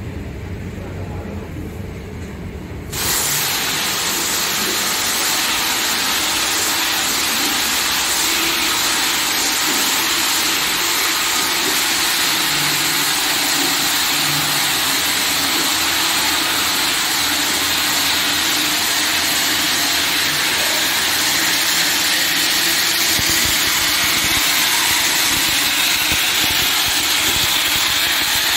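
BOPP tape slitting machine running, film and rollers making a steady, even rushing noise over a low machine hum; the noise steps up sharply to full level about three seconds in.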